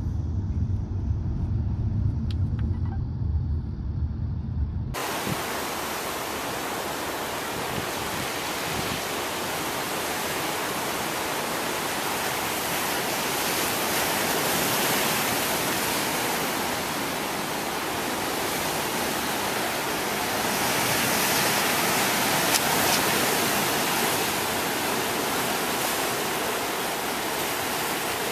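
Low car-cabin road rumble for the first few seconds, then a sudden change to the steady wash of ocean surf breaking on rocks, with slow swells in loudness, picked up by a Cisco Flip Ultra camcorder's built-in microphone.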